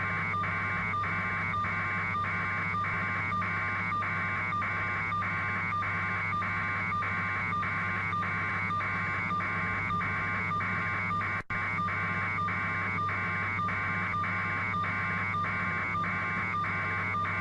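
Helicopter cabin noise heard through a live phone or radio link: a steady low drone with a regular pulsing buzz, about two to three pulses a second. The line drops out for a moment about two thirds of the way through.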